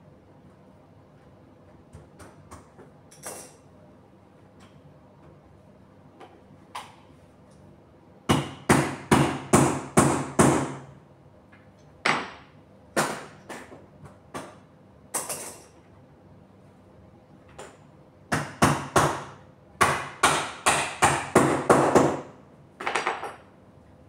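Hammer blows on the bed's frame. They come in quick runs of sharp strikes, about four a second, with a few single blows between the runs and faint taps in the first few seconds.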